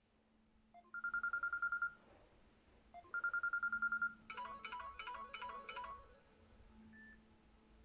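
Ringtones playing on a Samsung Galaxy Trend 2 Lite phone: a fast-pulsing single-tone ring sounds twice for about a second each, each time just after a short click, then a quick repeating melody of a few notes plays for under two seconds.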